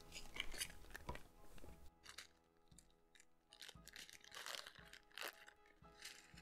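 Small clear plastic bag of game pieces crinkling in short rustles as it is handled and opened, over faint background music.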